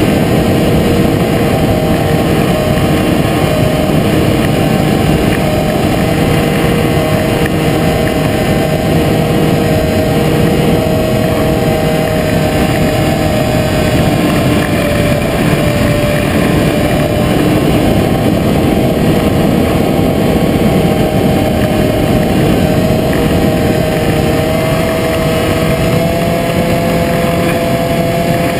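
Onboard sound of a Predator model aircraft in flight: a steady drone from its motor and propeller under loud wind rush over the camera. The pitch drifts slightly and rises a little near the end.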